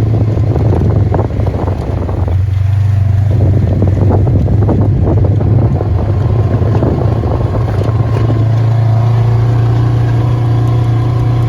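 Motor vehicle engine running steadily, a loud low drone with rattles and some wind noise over it.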